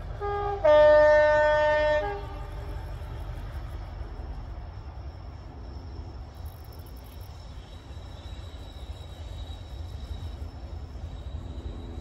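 Two-tone horn of an approaching diesel locomotive, sounded in the distance. A short higher note is followed by a lower note held for about a second and a half, with a brief return to the higher note as it ends. After the horn a steady low rumble carries on.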